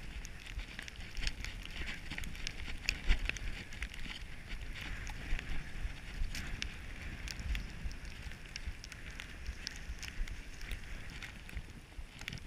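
Snow hissing and scraping under a rider sliding down a groomed slope, with wind rumbling on the camera's microphone and frequent sharp ticks throughout.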